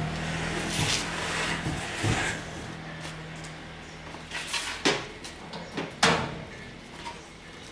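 A handful of sharp knocks and clunks, as of parts or a panel being handled, over a low steady hum that stops about two and a half seconds in.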